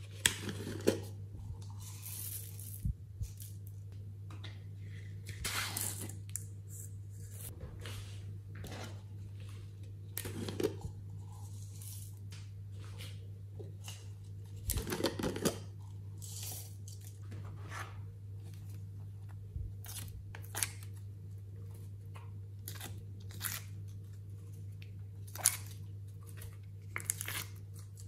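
Small plastic cups of soft modelling clay being handled and opened, with lids twisted and pulled off. The plastic gives short tearing, crinkling rustles and sharp clicks at irregular intervals over a steady low hum.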